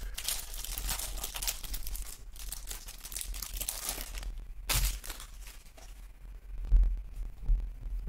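Clear plastic wrapper of a retail football card pack crinkling as it is torn open, then the cards are slid out and handled, with a sharp rip about halfway and a dull bump near the end.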